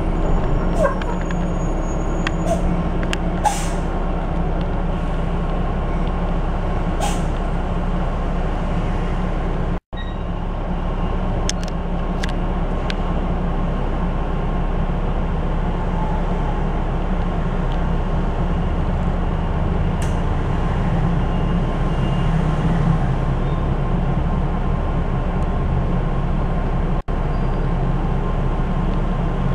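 Cabin sound of an RAC EV Race 150 electric bus moving in city traffic: a steady low hum from the electric drive and running gear, with road noise. A few short hisses and clicks come in the first several seconds, and the sound drops out for an instant about ten seconds in.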